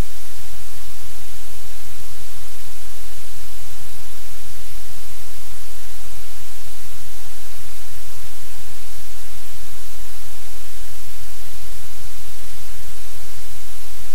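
Loud, steady static-like hiss with a low hum underneath, unchanging throughout.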